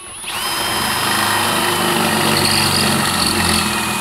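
Power drill spinning up shortly after the start, then running steadily with a 3/8-inch twist bit, enlarging a hole through double-thick steel. A steady motor whine sits over the cutting noise of the bit in the metal.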